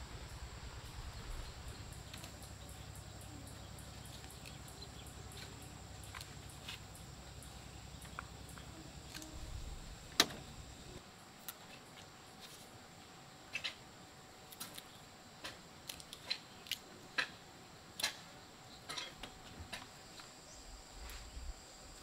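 Leafy vine shoots being snapped and stripped by hand. There is one sharp loud snap about ten seconds in, then a string of smaller crisp snaps and rustles. Under it a steady high insect drone runs throughout, and a low rumble in the first half stops about eleven seconds in.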